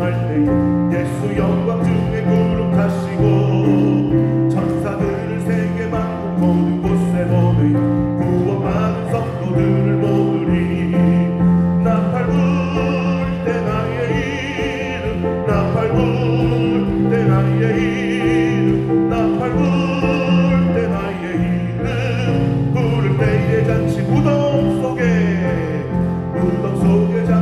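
Church praise band playing a worship song: electric bass, drums and keyboard under sung vocals with vibrato.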